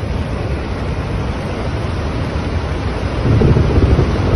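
Floodwater of a flash flood (a sudden surge of river water) rushing down a swollen, muddy river: a loud, steady rush of water with a deep rumble, growing louder about three seconds in.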